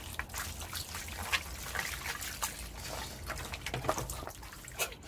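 Wet squishing and trickling as boiled eel flesh and bones are kneaded and squeezed by hand in a plastic colander, with water running through into a basin below. Many small irregular splashes and drips.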